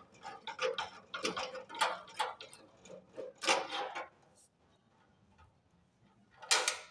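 Irregular light clicks and ticks of a screwdriver and fingers working the earth-wire screw and wires of an instant gas geyser's ignition kit, then a pause and a brief scrape near the end.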